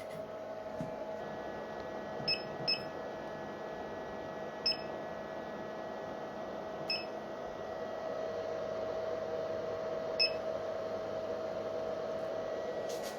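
50-watt CO2 laser tube making the noises it is shown for: a steady hum, with five short sharp clicks at irregular intervals.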